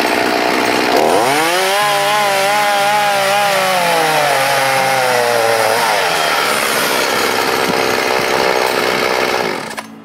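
Two-stroke gas chainsaw running at high revs while cutting lengthwise through a log. Its engine pitch rises about a second in, wavers under the load of the cut, drops around six seconds, and the sound cuts off near the end.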